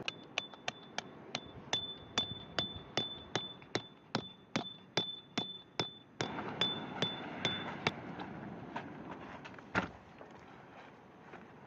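A hammer striking a metal peg over and over, about two and a half blows a second, each with a short ringing clink, as a tent or tarp peg is driven into the ground. The blows grow sparse after about eight seconds, with one last hard blow near the end.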